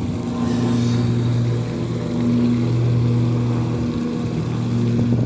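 A low, steady engine or motor hum running at constant speed, its pitch unchanging.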